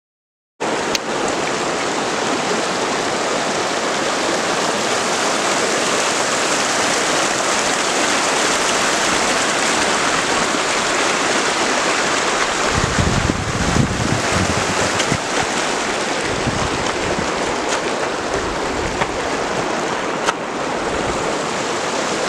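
Glacial meltwater stream rushing over the ice in a steady, even hiss. A little past the middle, wind buffets the microphone for a few seconds with low rumbles.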